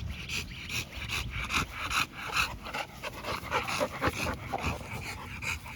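Young dog panting rapidly, about five breaths a second, with a few faint brief whines about four seconds in.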